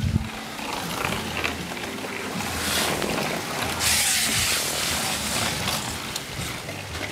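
Cyclocross bikes riding past through mud and wet grass, tyres hissing. The hiss swells twice, around the middle of the stretch, as riders pass close.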